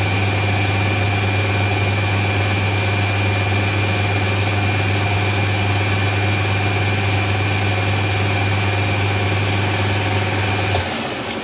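Taiwanese metal lathe running under power with a steady low hum and a steady high whine while a high speed steel tool takes a light finishing cut along a steel bar. Near the end it is switched off and the hum cuts out as the chuck winds down.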